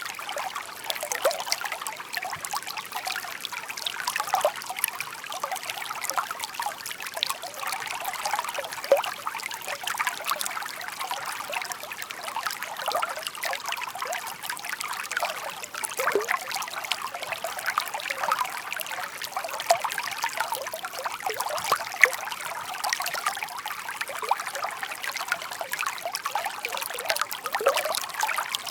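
A shallow brook babbling steadily, water trickling and gurgling with a constant patter of small splashes.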